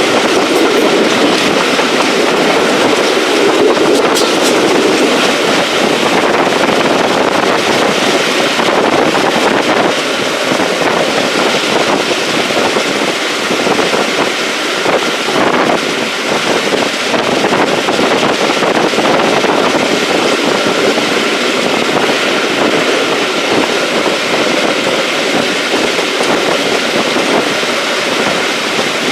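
Railway carriage running along the track, heard from aboard a steam-hauled train: a loud, steady rush of wheel-on-rail noise.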